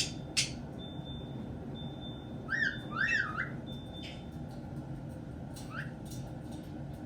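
Caique parrot calling: two short, sharp squawks at the start, then two whistled chirps that rise and fall, about two and a half and three seconds in, and one fainter chirp later on.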